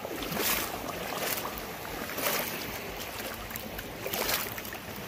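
Small lake waves lapping at the shoreline, a steady wash with several louder swells every second or two.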